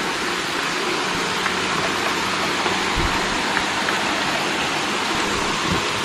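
Waterfall with a steady, even rush of falling water, and a couple of faint low bumps.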